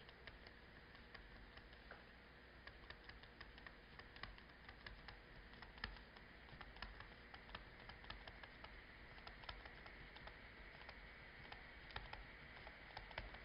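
Near silence, broken by faint, irregular small clicks and ticks.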